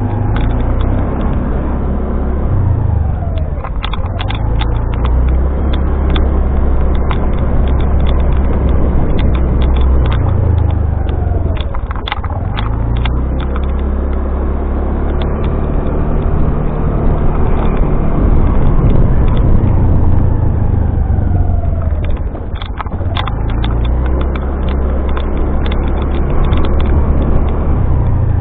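Motorcycle engine running under way on a ride, a continuous low rumble whose pitch steps and glides up and down several times as it changes speed and gear.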